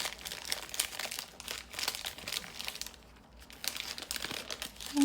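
Plastic wrapper of a Magnum ice cream bar crinkling as it is opened by hand, in irregular bursts with a short lull about three seconds in.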